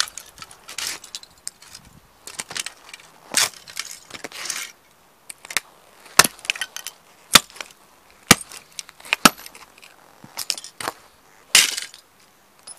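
Lowa hiking boots stomping on a toy model car on concrete: a dozen or so sharp cracks and crunches at irregular intervals as the car body breaks apart, with scraping of fragments between stomps.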